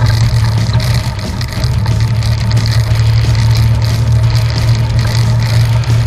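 Evinrude E-TEC outboard motor running steadily at speed with the boat under way, a constant low hum under a wash of wind and water noise.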